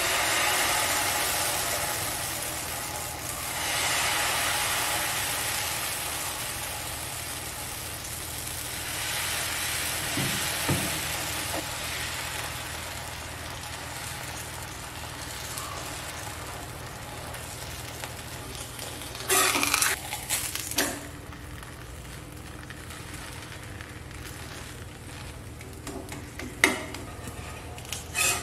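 Beetroot dosa batter sizzling on a hot cast-iron tawa as it is poured and spread with a ladle. The sizzle is loudest at the start, swells again a couple of times, then slowly fades as the dosa cooks. A few short knocks and scrapes come about two-thirds of the way in and again near the end.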